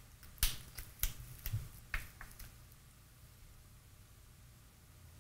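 Handling noise from a small UPS transformer and its wire leads: a few light clicks and rustles in the first couple of seconds, then quiet room tone with a faint low hum.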